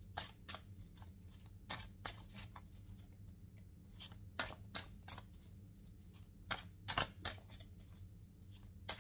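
A deck of tarot cards being shuffled by hand: irregular short flicks and slaps of cards, in bunches with brief pauses between. A faint steady low hum lies underneath.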